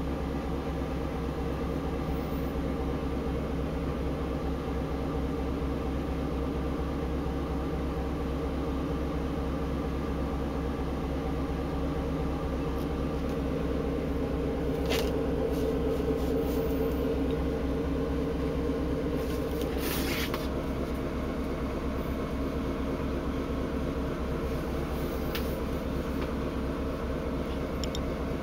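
Steady low drone of a tanker's engine and deck machinery, several hums layered together at an even level, with a couple of short rushes of noise about halfway and about two-thirds through.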